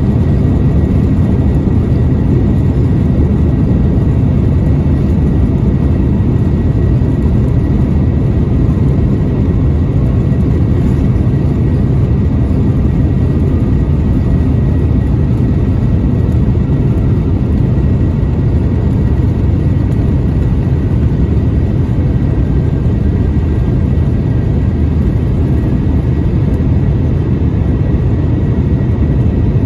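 Airbus A350's Rolls-Royce Trent XWB engines at takeoff thrust, heard inside the cabin: a steady, heavy rumble with a faint high whine over it.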